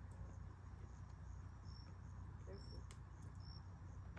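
Crickets chirping faintly in short high chirps about once a second, over a low steady rumble, with a couple of sharp clicks, the loudest near the end.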